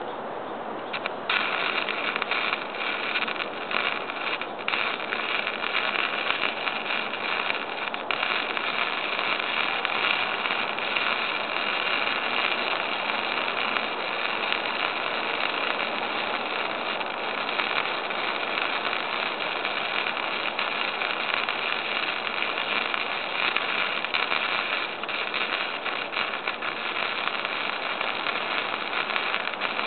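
Lincoln wire-feed welder's arc crackling steadily as a bead is run, starting about a second in, with a few short gaps in the first few seconds before it settles.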